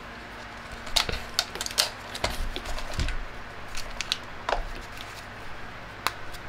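Irregular clicks and light knocks of small items being handled and set down, over a faint steady hum.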